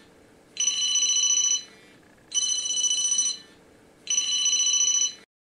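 Mobile phone ringing: three rings, each about a second long, of a high electronic tone made of several steady pitches, with short pauses between them. After the third ring it stops abruptly.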